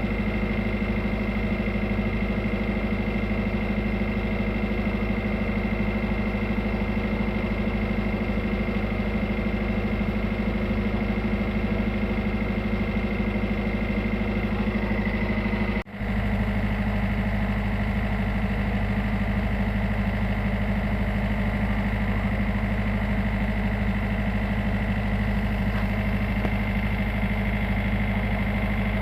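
Tugboat's diesel engine running steadily at low revs, with a momentary break in the sound about halfway through.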